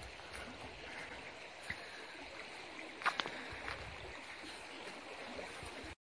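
Steady rush of river water flowing past the bank, with a short click about three seconds in.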